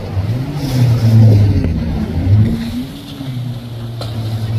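Motorboat engine running at speed through choppy water, its pitch dipping and rising repeatedly, then easing off and fading somewhat around three seconds in.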